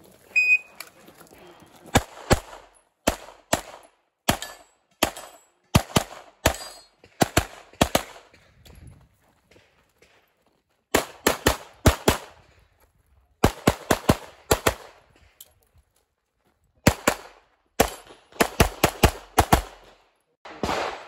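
A shot timer's short high start beep, then a CZ Shadow 2 pistol fired rapidly through an IPSC stage: dozens of shots, mostly in quick pairs, in strings broken by pauses of a second or two as the shooter moves between positions.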